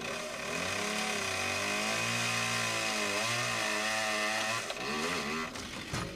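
Two-stroke chainsaw running at high revs, its engine pitch dipping and recovering as it cuts, then dropping away about five seconds in. A few short knocks follow near the end.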